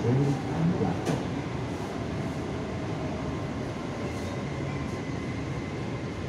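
Metro train running, heard from inside the carriage as a steady, even rumble with a faint high hum.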